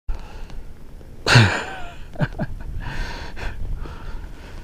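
A man laughing. A loud burst falls in pitch about a second in, followed by two short chuckles and then breathy exhales.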